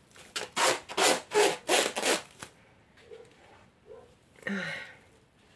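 Plastic stretch film being pulled off its roll and wrapped around a flowerpot: about six quick pulls in a row, each a short rubbing stroke, over the first two seconds. A softer, briefer rustle comes near the end.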